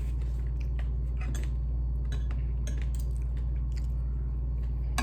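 Close-up chewing and crunching of crispy fried chicken, with scattered small clicks of utensils against a dish. A steady low hum runs underneath.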